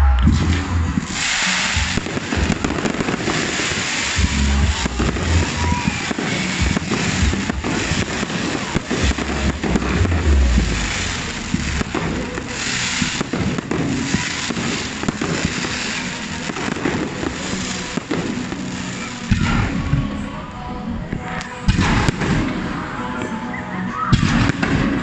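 Aerial fireworks display going off continuously, with many sharp bangs throughout and heavy low booms, over music played along with the show.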